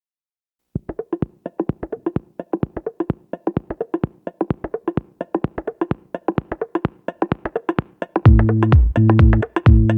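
Electronic background music: after a moment of silence a fast, dry percussive beat starts, and about eight seconds in loud, deep synth bass notes come in over it.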